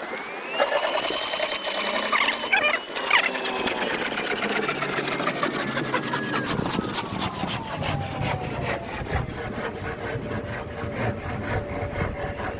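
A woodworking power tool cutting wood, its whine slowly dropping in pitch over several seconds, with a fast regular ticking running through.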